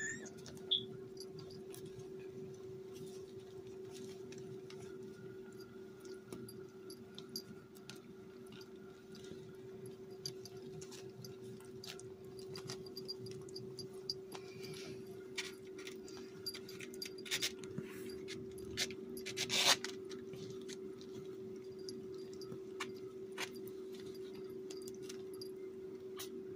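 Eighteen-day-old kittens crawling and nursing on a quilted puppy pad: soft scratching and rustling with scattered small clicks, and one louder rustle about two-thirds of the way through. A short rising kitten mew comes right at the start, all over a steady low hum.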